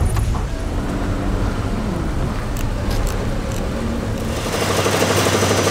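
Car driving on a rough, bumpy road: a steady low rumble of engine and tyres. About four and a half seconds in, the deepest rumble falls away and a lighter, hissier hum takes over.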